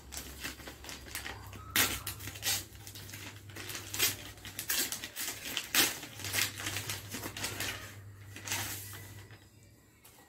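A brown paper mailer envelope being torn open and handled: a fast run of short rips, crackles and paper rustles, louder from about two seconds in and dying away near the end.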